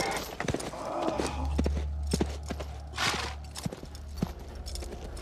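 Horse hooves clopping in an uneven rhythm of two or three strikes a second, with a low rumble underneath for a couple of seconds in the middle and two short rushes of breath-like noise.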